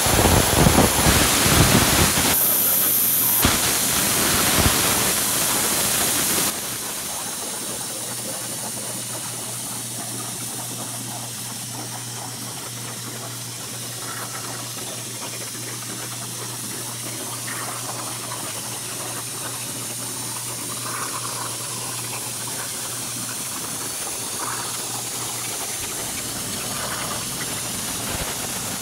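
CNC plasma torch cutting steel plate: a steady hiss of the arc and cutting air, loud and crackling at first, then quieter from about six seconds in, with a low steady hum underneath.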